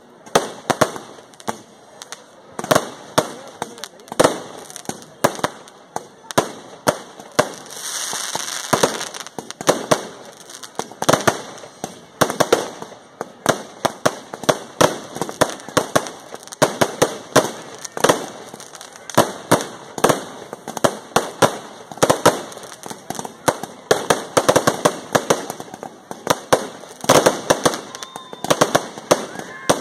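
Fireworks and firecrackers going off: an irregular string of sharp bangs and crackles, several a second, with a hissing burst about eight seconds in.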